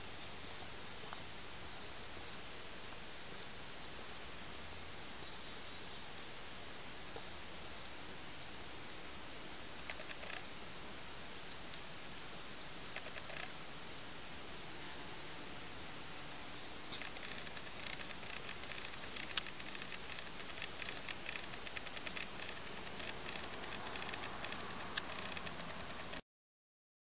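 Insects trilling: a steady high-pitched shrill, with a second, rapidly pulsing trill above it in stretches. A single sharp click about two-thirds of the way through, and the sound cuts off suddenly near the end.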